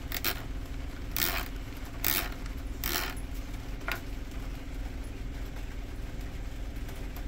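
Small metal tools clinking and rattling as they are handled: about five short clinks in the first four seconds, over a steady low hum.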